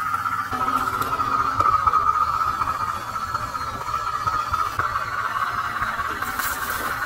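Simulated diesel engine sound from the LDRC LD1297 RC crawler's sound module, a steady hissing drone over a pulsing low rumble.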